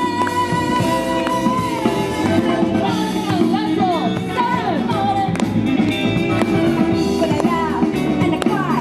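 Music with a singing voice, steady and fairly loud, with sliding pitches in the melody from about three seconds in.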